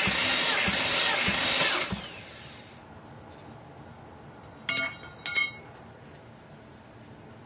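Volvo five-cylinder engine cranked over on its starter for a compression test, with an even pulse of compression strokes, stopping about two seconds in. Two short metallic clinks follow about half a second apart.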